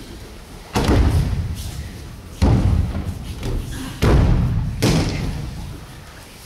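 Judoka being thrown onto tatami mats: four loud breakfall thuds, the first under a second in, then at about two and a half, four and just under five seconds, each dying away with a short echo.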